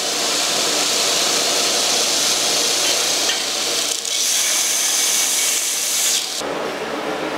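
Power tool grinding into steel bar stock, a steady hissing grind that dips briefly about four seconds in and stops suddenly near the end, leaving a lower steady hum.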